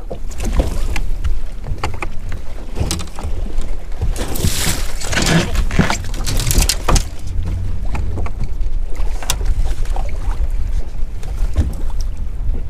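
Wind buffeting the microphone over a steady low rumble, with choppy waves slapping and splashing against a bass boat's hull. A louder rush of water comes about five seconds in.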